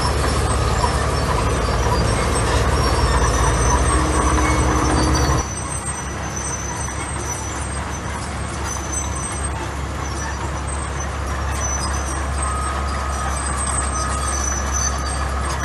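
Heavy diesel earthmoving machinery running, a deep engine drone with high metallic squeals over it. The sound drops abruptly about five seconds in and carries on a little quieter.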